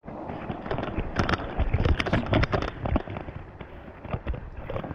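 Dense, irregular crackling and knocking: footsteps crunching and scraping over a rocky reef shore.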